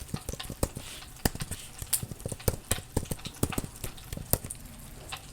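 Crackling: irregular sharp clicks and pops, several a second, some much louder than others.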